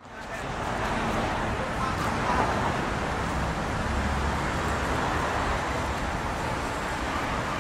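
City street ambience: a steady wash of road traffic noise with faint voices mixed in, fading in at the start.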